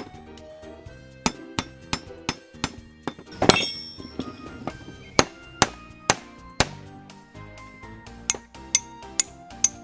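Hammer striking a chisel against a rusted steel pipe wrench to break it loose: a run of sharp metallic taps, irregular at about two a second, with one heavier ringing blow about three and a half seconds in. Background music plays underneath.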